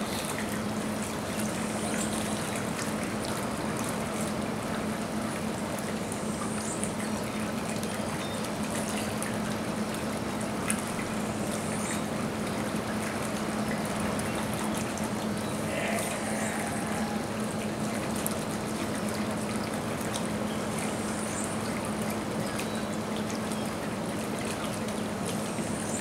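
Steady trickle of running water, with a constant low hum underneath.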